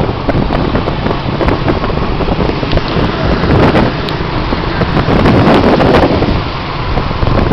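Wind buffeting the microphone on a moving vehicle, a loud steady rush with road noise that swells a little twice.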